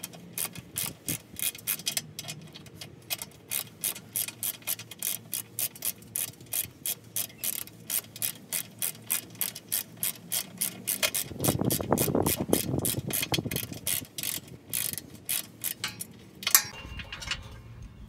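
Hand ratchet wrench clicking steadily, about four clicks a second, as it backs out the evap canister's mounting bolts. A louder, lower noise joins for a couple of seconds about two thirds of the way in, and the clicking stops shortly before the end.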